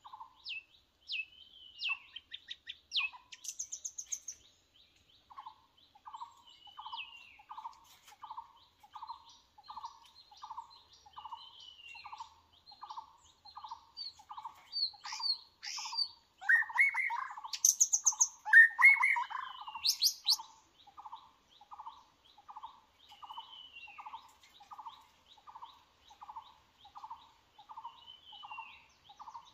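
White-rumped shamas calling and singing in short, varied whistled phrases and trills, loudest in a burst near the middle. Under them another bird repeats a low note about one and a half times a second.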